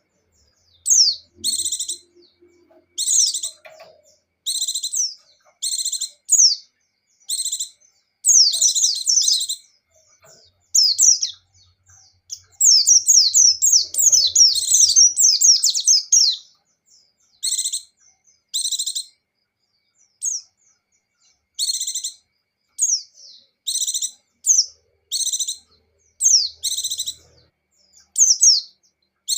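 White-eyes (pleci) singing: short bursts of high, fast, falling chirpy song about a second long, repeated every second or two, with a longer unbroken run of song from about 12 to 16 seconds in.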